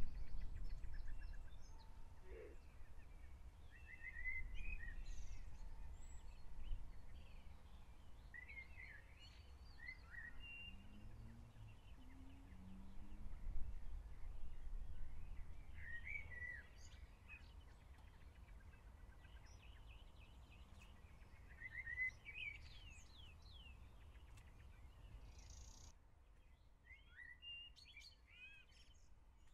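Small birds chirping every few seconds over a low, uneven rumble of outdoor background noise; the rumble drops away near the end.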